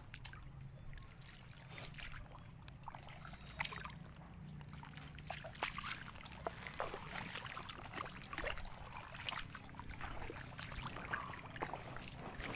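Shallow water sloshing and trickling around feet wading through soft mud, with many scattered small clicks, pops and squelches, over a low steady rumble.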